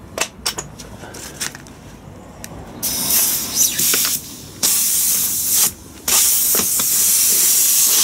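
A few metal clicks as a socket goes onto the nut, then from about three seconds in a pneumatic impact wrench runs in three bursts with a loud hiss, working the large mainshaft nut of an LT230 transfer box.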